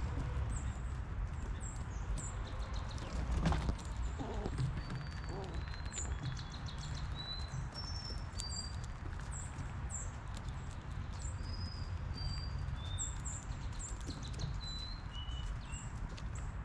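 Small songbirds chirping in short high notes again and again, over scattered clicks and crunches of a gray squirrel rummaging through peanuts and seed on a platform feeder, with one louder knock about three and a half seconds in.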